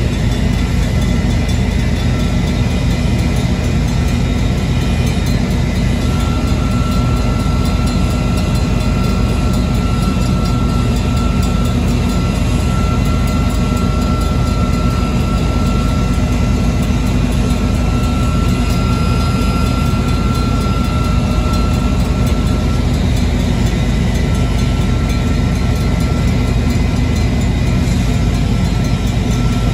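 Railroad crossing warning bell, a Safetran hybrid electronic bell, ringing on and on because the crossing has timed out: a track circuit is held by cars switching nearby, not by a train at the crossing. Its tone sits over a heavy, steady low rumble, which is the loudest part of the sound.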